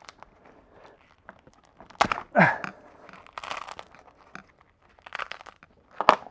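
Printed TPU support material being pulled and torn by hand out of a flexible TPU part: irregular crackling and tearing. The loudest rips come about two seconds in and just before the end.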